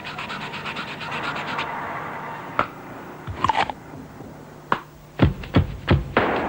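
Commercial soundtrack of percussive sound effects: a fast rattling rhythm over a steady tone, then hissing with a few scattered clicks, then a run of hard, uneven percussive hits starting about five seconds in.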